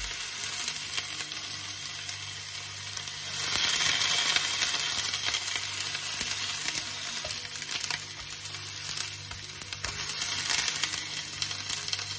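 Lamb neck pieces sizzling in hot olive oil in a frying pan as they are seared. The sizzle swells louder about four seconds in and again near the end, over a faint steady low hum.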